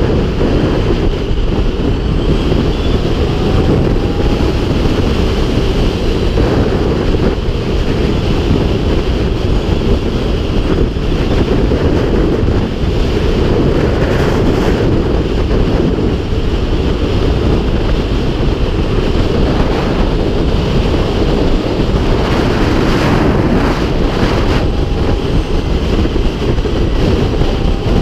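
Wind buffeting the helmet camera's microphone at road speed on a 2016 Zero FXS electric motorcycle: a loud, steady, low rushing with no engine note, as the electric bike runs near silent.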